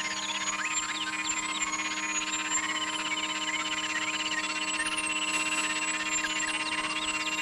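Live electronic music: several steady sine-tone drones held under a high tone that wavers and glides up and down, with a dense scatter of short chirping glides over them.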